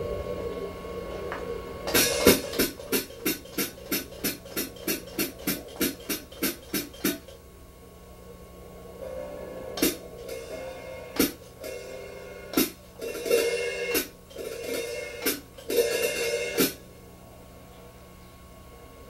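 Drum kit played by hand: a run of even drum strokes at about four a second for some five seconds, then a short break, then scattered hits with ringing cymbal crashes, stopping a couple of seconds before the end.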